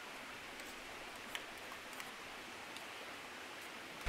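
Faint steady rushing of a flowing stream, with a few sparse soft crackles from a wood fire.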